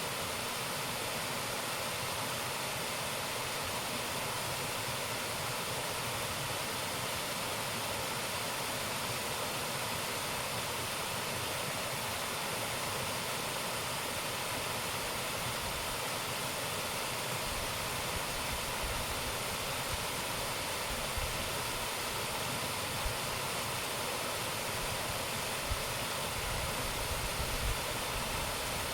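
Waterfall pouring: a steady, dense rush of falling water, with low rumbles coming and going in the second half.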